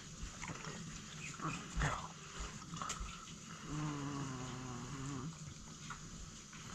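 White Shiba Inu eating from a stainless steel bowl, with chewing and a few short clicks of its mouth against the metal. About halfway through comes a low, drawn-out vocal sound lasting about a second and a half.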